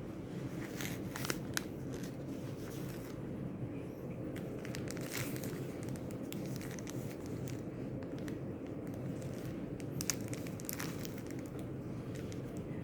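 Packaging being handled during unboxing: scattered crinkling and rustling at irregular moments, the sharpest about a second in and about ten seconds in, over a steady low background hum.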